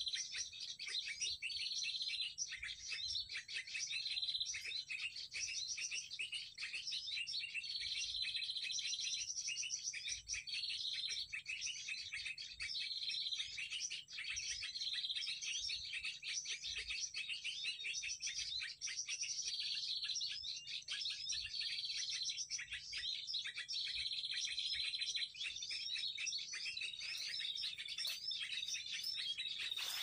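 Dense, unbroken chirping and twittering of many small birds from an MP3 bird-call lure played to draw birds onto lime sticks. A high trill recurs every two to three seconds.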